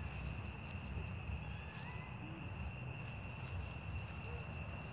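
Quiet outdoor ambience: a steady high insect drone, like crickets or cicadas, over a constant low rumble, with a few faint short chirps.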